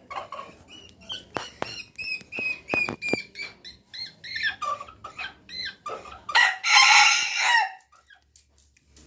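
Chickens clucking and squawking in a string of short calls, with one longer, louder call near the end.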